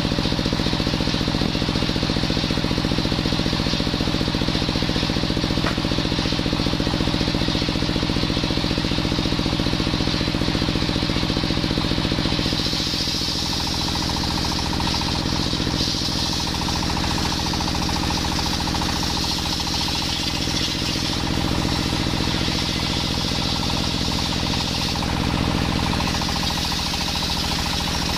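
Engine-driven table saw: a stationary engine runs steadily, turning the circular blade by belt. About halfway through, the higher hiss of the blade ripping lengthwise through soft coconut wood joins in and carries on.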